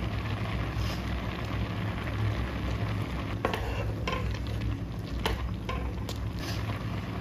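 Chana dal boiling down in milk in a pot: a steady bubbling hiss, with a spoon knocking and scraping against the pot several times as it is stirred.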